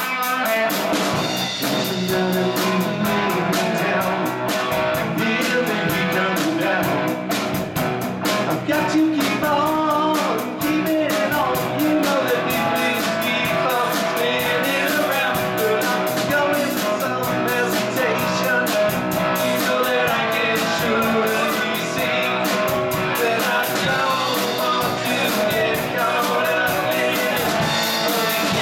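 Live rock band playing: two electric guitars, one a red Les Paul-style, over bass guitar and a drum kit keeping a steady beat.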